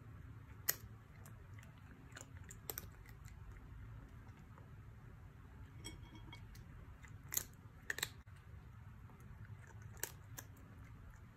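A cat eating dry kibble from a ceramic plate: a handful of short, sharp crunches spread irregularly through, over a faint low hum.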